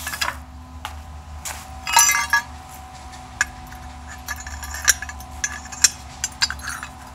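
Loose metal parts clinking and clattering as they are handled and shifted, with a loud cluster of ringing clinks about two seconds in and lighter clicks later, over a steady low hum.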